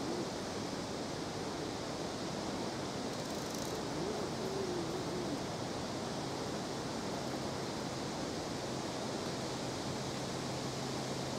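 Steady outdoor background noise, an even hiss with no distinct events. A faint voice is heard briefly about four seconds in, and a low steady hum comes in about seven seconds in.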